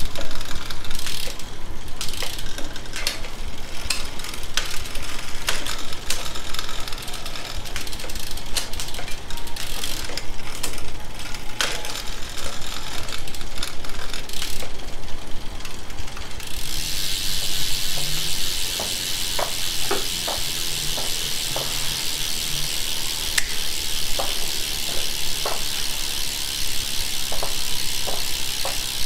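1985 Bridgestone 500 drivetrain turned on a stand: the chain runs over the chainrings through the original front derailleur with many sharp clicks. About halfway through, the cranks stop and a steady high buzz sets in, the rear freewheel's pawls ratcheting as the wheel coasts.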